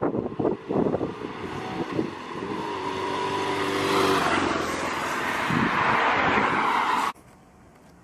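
A BMW R1100RT's boxer-twin engine and its tyres hissing on a wet road as the motorcycle rides past. The sound builds to its loudest as the bike passes, about four seconds in. It cuts off abruptly about seven seconds in.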